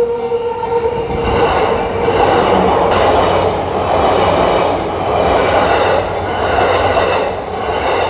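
Japanese level-crossing warning bell ringing in a repeating pattern, then a train passing over the crossing from about a second in, its wheels rumbling and clattering in waves as the cars go by.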